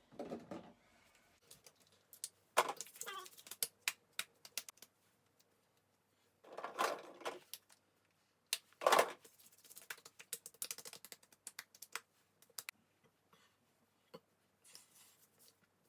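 Scattered sharp clicks and light clatter of small hard objects being handled, with a few louder brushing, rustling bursts.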